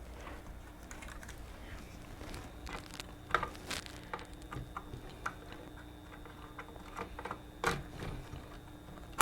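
Faint, scattered plastic clicks and taps as RAM sticks are unlatched and pulled from a motherboard's memory slots, over a faint steady hum.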